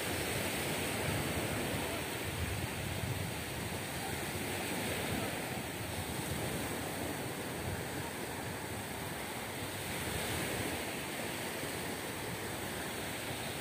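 Small sea waves breaking and washing up on a sandy beach, a steady surf hiss that swells and eases every few seconds, with wind rumbling on the microphone.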